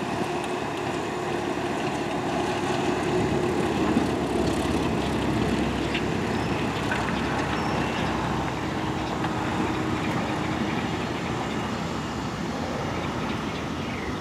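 Cessna 172M's four-cylinder Lycoming engine and propeller running at low power, a steady drone, as the plane touches down and rolls out along the runway.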